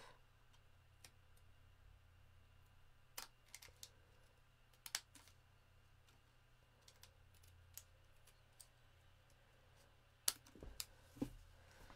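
Small craft scissors snipping the edges off a piece of patterned card stock: faint, irregular snips and clicks, a few a little louder than the rest.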